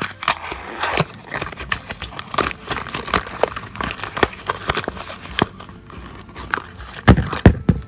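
Plastic wrap crinkling and a small cardboard blind box being handled and opened, with many small clicks and rustles and two louder knocks near the end.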